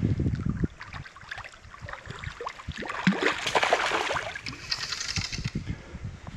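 Splashing and sloshing of river water, loudest from about three to five and a half seconds in, over the low gurgle of the stream.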